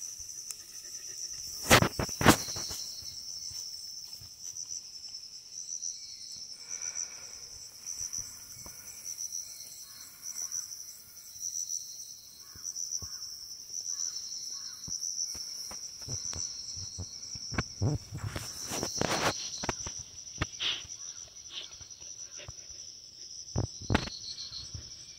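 Steady, high-pitched pulsing chorus of insects in long grass, broken by a few loud thumps about two seconds in, around two-thirds of the way through, and near the end.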